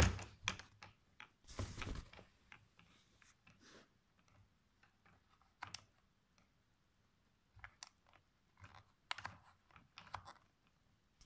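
Irregular light clicks and knocks, in small clusters with gaps between them, the loudest right at the start.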